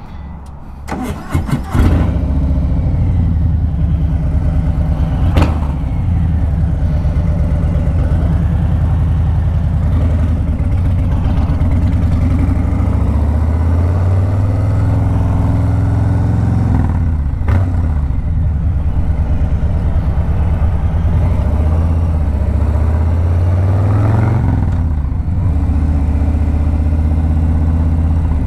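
Harley-Davidson Low Rider S's Milwaukee-Eight 114 V-twin running through a Two Brothers 2-into-1 shorty exhaust while riding. The engine comes in loud about two seconds in, then runs steadily, rising in pitch several times as it accelerates and dropping back between.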